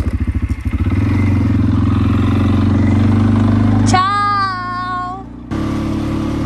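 Quad bike (ATV) engine running as it is ridden: a low pulsing at first, then a steady hum once under way. A cut about four seconds in brings a short drawn-out voice, and the engine comes back near the end.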